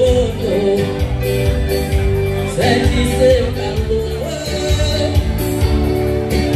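Live forró band playing, the accordion holding and sliding between notes over a steady dance beat from the rhythm section.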